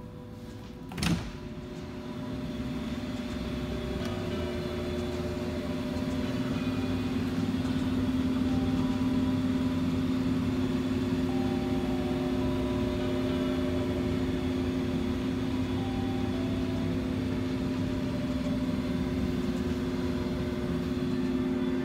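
Furnace running: a steady low hum with two held tones, growing louder over the first several seconds. A sharp knock comes about a second in.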